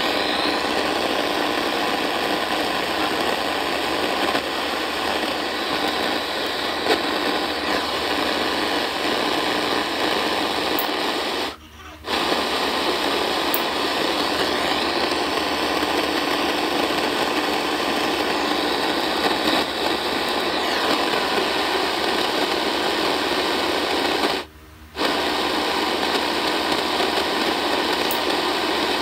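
AM radio receiver static: a steady hiss and buzz from a frequency with no clear station. It cuts out briefly twice, about 12 seconds in and again near 25 seconds.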